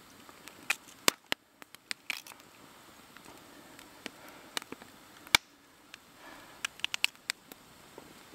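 Carrot being cut with a knife straight into a billy can of water over a campfire: scattered sharp snaps and small plops of pieces dropping in, the loudest a little after halfway, over the light crackle of the fire.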